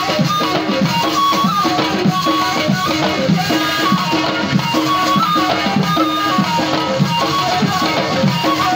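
Amplified Tunisian folk music: a gasba, a long end-blown reed flute, plays a melody over an even beat of hand-struck bendir frame drums.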